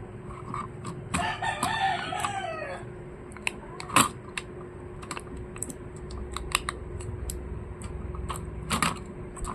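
A rooster crows once, about a second in, the call falling in pitch at its end. Throughout, light clicks and taps come from the laptop's plastic and metal parts being handled, and the loudest tap falls about four seconds in.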